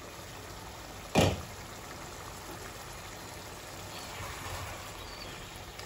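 Bottle gourd curry simmering in a pot, a steady bubbling hiss of liquid. About a second in, a single sharp clank as the pot's glass lid is set down, then a wooden spoon stirring through the gourd pieces.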